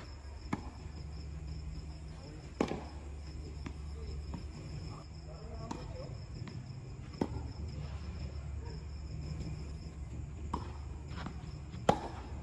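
Tennis rally in doubles: sharp pops of racket strikes and ball bounces, a second or more apart, with the loudest near the end. Under them run a steady low hum and crickets chirping.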